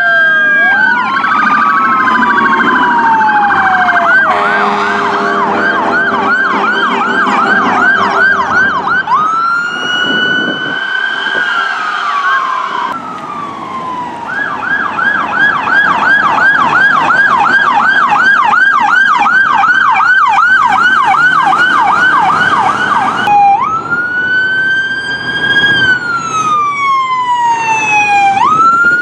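Electronic emergency-vehicle sirens going by. At first two sirens overlap in slow rising-and-falling wails, then comes a fast yelp of about three sweeps a second, and after a cut a single long wail rises and falls.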